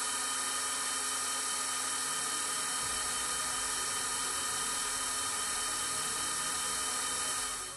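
Self-built CNC milling machine with a small end mill cutting fins into a copper tube. Its spindle gives a steady, high whine made of many fixed tones, which stops suddenly near the end.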